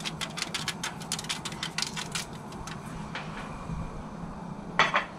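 Salt grinder being twisted over a foil tray of asparagus: a fast run of dry crackling clicks that thins out after two to three seconds. A single louder clatter comes near the end, over a low steady hum.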